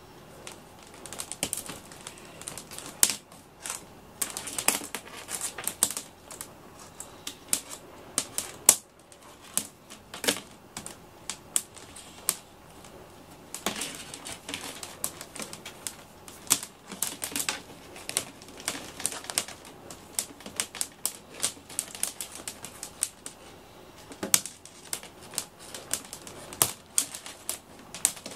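Irregular clicks and clatter of cables and plug connectors being handled and untangled, coming in clusters with short pauses between.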